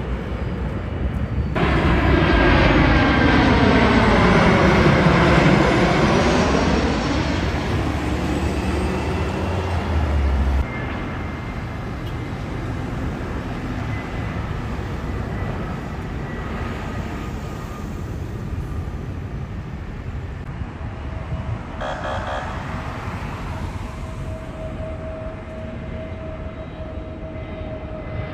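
Jet airliner passing low overhead on landing approach, its engine noise loud for about five seconds with a whoosh that sweeps down and back up in pitch. After an abrupt drop in level comes the quieter, steady engine sound of another jet airliner on approach, with a thin steady tone growing near the end.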